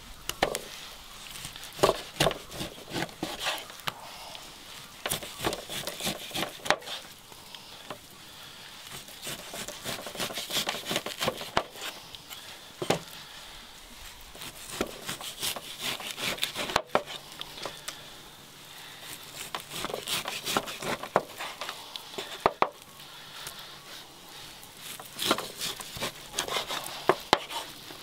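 Irregular knocks, snaps and rustling, the sounds of wood and cooking gear being handled by hand outdoors, over a steady faint hiss. The sequence breaks off sharply for an instant a few times.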